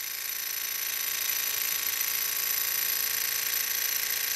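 Small hot-air Stirling engine and its generator running steadily at about 1,700 RPM, a steady high-pitched whir that grows slightly louder in the first second as ice on the engine's cool side speeds it up.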